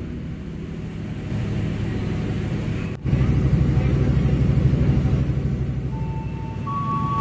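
Diesel engine of a standing passenger train running at idle: a steady low rumble. It drops out for an instant about three seconds in and comes back louder.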